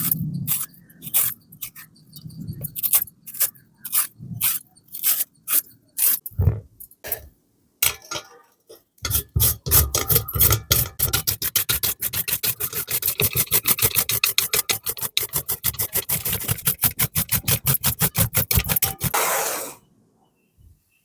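Rhythmic scraping strokes of hand food preparation. Separate strokes come about two a second at first, then a fast, even run of about seven a second for some ten seconds, ending in a short burst.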